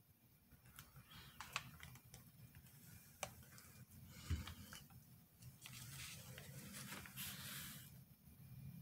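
Faint handling sounds while working at a soap mold: a few light clicks and knocks, a soft thump about four seconds in, then rustling.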